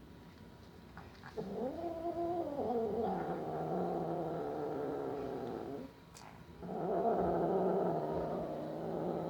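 A domestic cat giving two long, low growling yowls while sucking on a lemon. The first starts about a second and a half in and sags in pitch; the second follows after a short pause.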